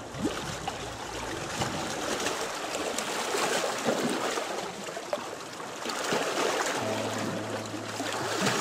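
Choppy reservoir water lapping and splashing against a stony shore: a steady wash of water noise with many small irregular splashes.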